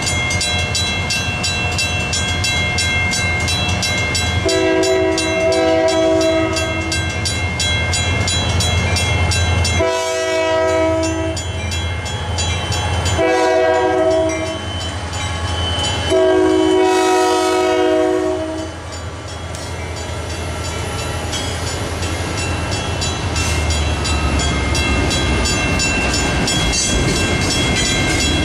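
Grade-crossing bells ring steadily while the approaching Union Pacific freight locomotive's horn sounds four chord blasts: a long one, two shorter ones and a final long one, the grade-crossing signal. The rumble of the locomotive and freight cars rolling through the crossing then builds near the end.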